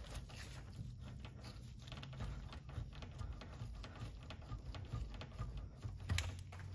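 Faint, irregular light clicks and taps of parts and tools being handled under a car, over a steady low hum, with one sharper click about six seconds in.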